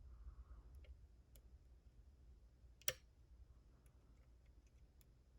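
Faint, scattered clicks of a lock pick working the pins of a Den Brass Kickass challenge lock during single-pin picking, with one sharper click about three seconds in.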